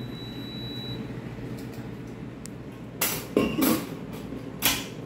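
Full aluminium beer cans and wire beer-can-chicken stands knocked and clinked against a kitchen counter: a short cluster of sharp knocks about three seconds in and one more shortly before the end, over a low steady kitchen hum.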